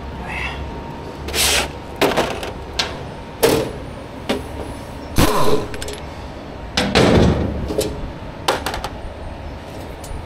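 A series of short, irregular bursts from a cordless impact driver backing out the screws of the generator alternator's sheet-metal cover, mixed with metallic clanks and rattles as the perforated panel is handled.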